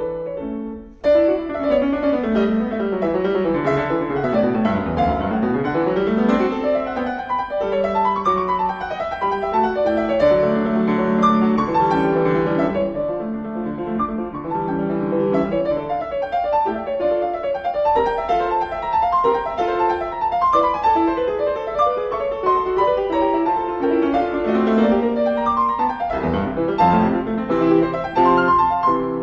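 Background piano music: quick running scales and arpeggios over held chords.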